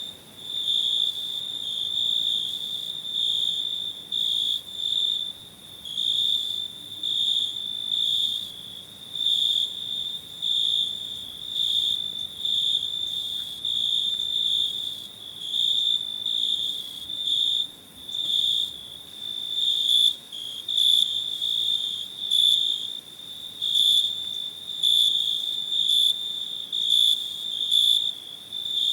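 Cricket chirping: a high, steady pitched trill repeated in regular chirps about once a second.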